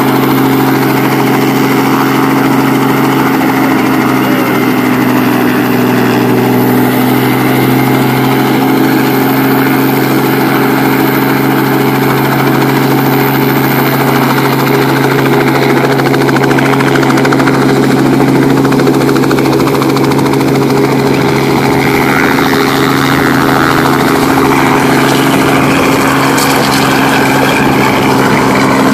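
Small two-bladed piston helicopter running on the pad with its rotor turning, a loud steady engine and rotor drone, lifting off near the end.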